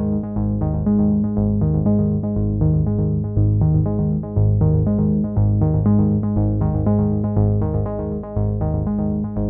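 Background music: a steady, quick pulse of short pitched notes over changing held bass notes.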